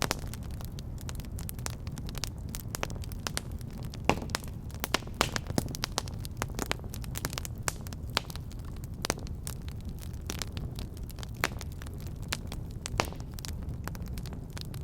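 Fire burning in a fireplace, crackling with frequent sharp pops over a low steady rumble of the flames. The loudest pops come about four seconds in, and again near nine and thirteen seconds.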